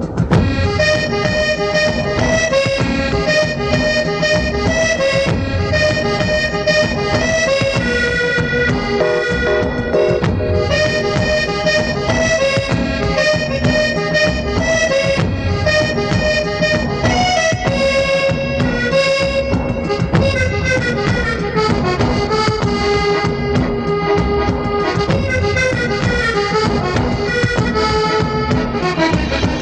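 Instrumental music: a melody of held, organ-like notes over a steady low drum beat, with the melody stepping downward in the last third.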